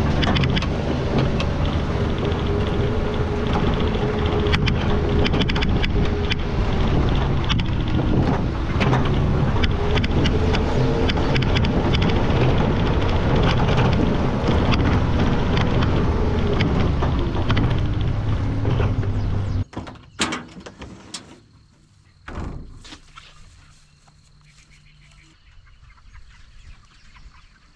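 Suzuki Carry mini truck driving over rough pasture: engine running under a steady low rumble, thick with rattles and bumps, and wind on the microphone. About twenty seconds in it cuts off suddenly, leaving a quiet outdoor background with a couple of sharp knocks.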